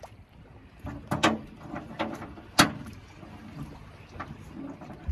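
A jon boat being loaded onto its trailer: a handful of irregular knocks and clunks, the loudest about two and a half seconds in.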